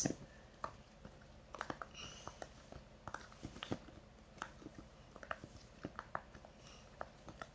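Silicone push-pop bubble fidget toy being popped with the fingers: a string of soft, irregular pops, two or three a second.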